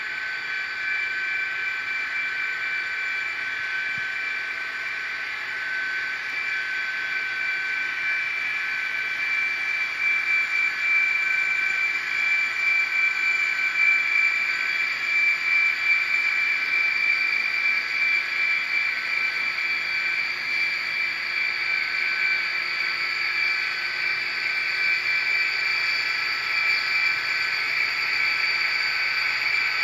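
ESU sound decoders in N scale model diesel locomotives playing a steady diesel engine drone with a high whine through their tiny speakers, thin and without bass. It grows a little louder and more uneven from about ten seconds in.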